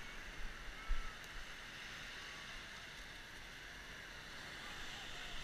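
Steady beach ambience: an even hiss of wind and surf, with a couple of low wind thumps on the microphone in the first second.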